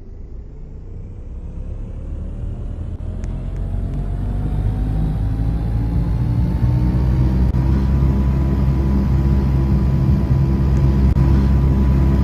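Air conditioner starting up: a heavy low hum that grows louder, with a whine rising in pitch over about seven seconds and then holding steady as the unit comes up to speed.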